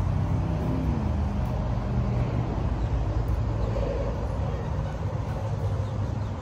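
Steady road traffic noise: a continuous low rumble of passing vehicles, with one engine tone dropping in pitch about a second in.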